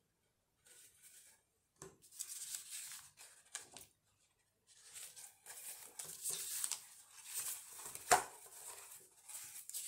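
Sheets of decorative paper rustling and crinkling as they are handled, lifted and bent, in uneven bursts with short pauses. A sharp snap of paper about eight seconds in is the loudest sound.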